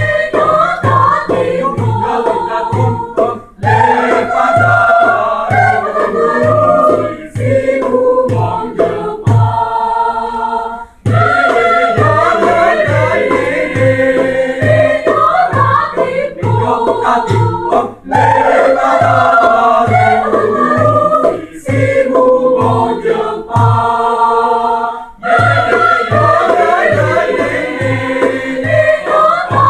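Student choir singing in parts, with a steady low beat about twice a second under the voices. The beat drops out briefly twice while the choir holds a chord.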